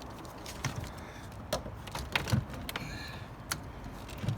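A truck battery being worked down into its tray in the engine bay: scattered clunks, knocks and sharp clicks, with a low thump near the end and a brief scrape about three seconds in.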